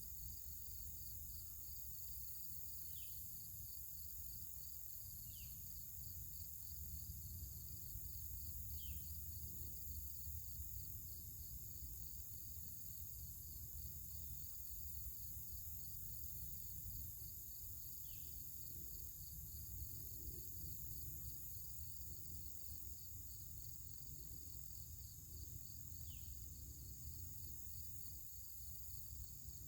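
Steady chorus of insects: a fast, evenly pulsing cricket-like trill with a high hiss of other insects above it, over a low rumble. About five short, high, falling chirps stand out now and then.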